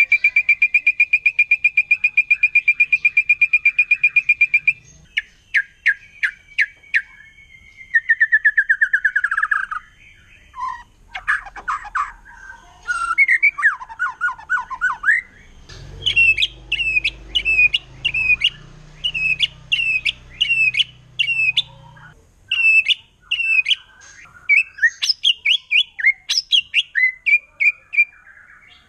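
White-rumped shama singing a loud, varied song. It opens with a long rapid trill, moves through changing phrases and falling trills, then repeats sharp down-slurred notes about twice a second.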